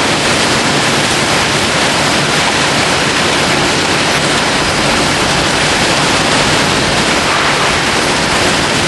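Steady, even roar of packaging-line machinery and conveyors, with no distinct knocks.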